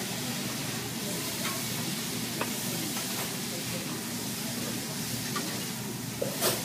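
Food sizzling steadily on a hot teppanyaki griddle, with a few sharp clicks of metal spatulas striking the griddle, the loudest near the end.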